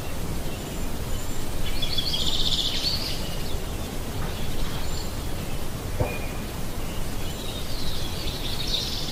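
Outdoor background noise with a low rumble, and faint high-pitched pulsing calls twice, about two seconds in and again near the end, plus a single click about six seconds in.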